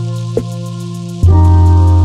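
Ambient intro music of sustained, held chords; a little over a second in, the chord changes and the music gets louder.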